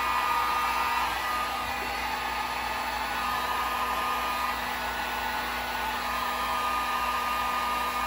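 Electric heat gun running steadily, blowing hot air to shrink heat-shrink butt connectors down onto the wires: an even rush of air with a low steady hum.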